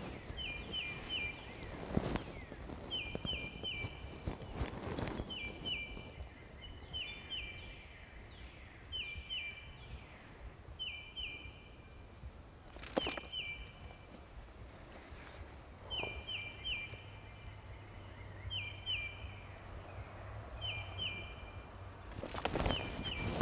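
A small bird calling over and over, a quick pair of high notes about once a second, over a faint outdoor background. A single sharp click about halfway through and a brief scuffing noise near the end.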